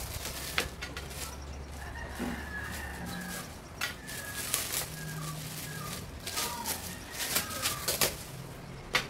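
Chickens clucking several times, mixed with the crinkling of a plastic-wrapped parcel being handled, the crinkles loudest near the end.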